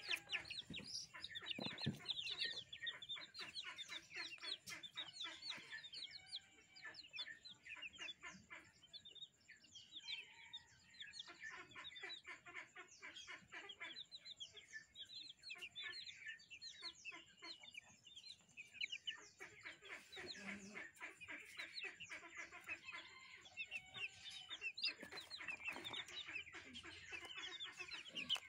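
A flock of young chicks peeping, many short high cheeps overlapping without a break.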